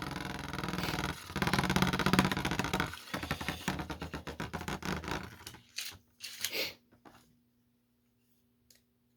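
3D-printed Beyblade spinning tops clattering and scraping against each other in the stadium: a dense, fast rattle for about three seconds, then slower scattered clicks as they wind down, stopping about seven seconds in.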